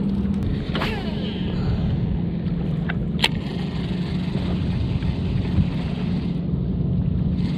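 Boat motor running with a steady low hum, with wind on the microphone and a couple of brief clicks from the fishing gear.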